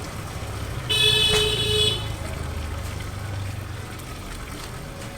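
A horn sounds once, a loud pitched blast of about a second starting about a second in, over a low steady rumble.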